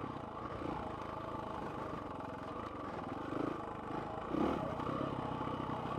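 Dirt bike engine running steadily while the bike rides across bare rock.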